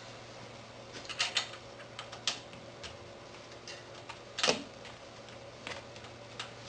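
Irregular light clicks and knocks of rack parts, bolts and tools being handled while a bicycle rear rack is bolted on, with the loudest knock about four and a half seconds in.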